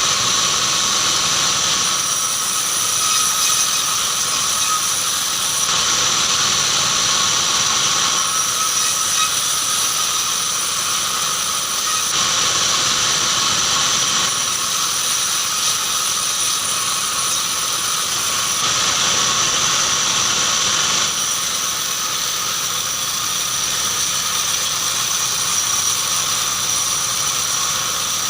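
Band sawmill running through keranji hardwood: a steady loud mechanical noise with a high whine, its upper pitch shifting every few seconds.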